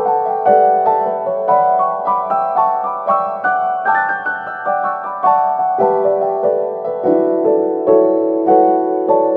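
Soft background piano music: a steady run of single notes over held lower tones.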